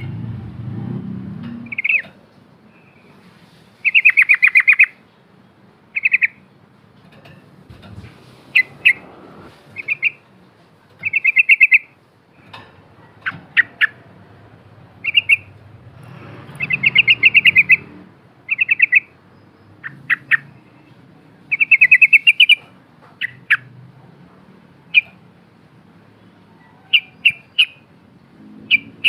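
Yellow-vented bulbul (trucukan) singing: short bubbly phrases every second or two, each a quick run of notes, mixed with single sharp chips.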